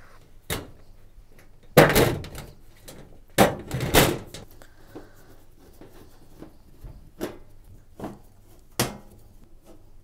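Washing machine's sheet-metal back panel knocking and clattering as it is pushed into place, with the loudest bangs in the first four seconds. Then a few lighter, sharper clicks as a screwdriver starts fixing the panel with its screws.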